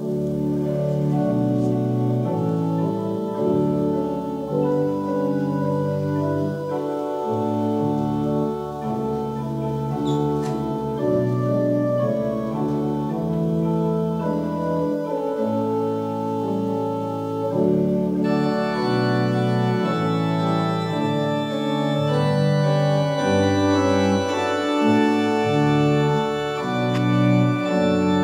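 Organ playing slow, sustained chords that change every second or two. About two-thirds of the way through, the sound turns fuller and brighter.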